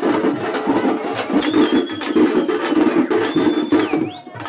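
A group of dappu frame drums beaten in a fast, steady rhythm. Two high, held tones sound over the drumming, about a second and a half in and again past three seconds.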